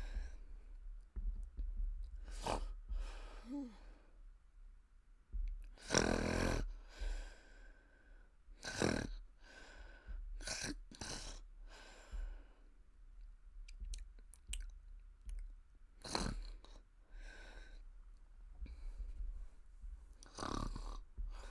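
A woman snoring with her mouth open as she sleeps sitting up: irregular, uneven snores, the heaviest about six and nine seconds in, mixed with short wet mouth and lip smacking sounds.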